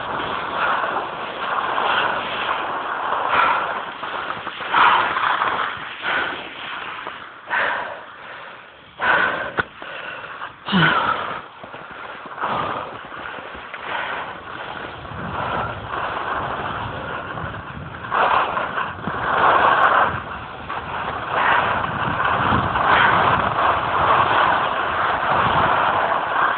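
Wind buffeting a phone's microphone during a downhill ski run, a rushing noise that swells and drops in uneven gusts.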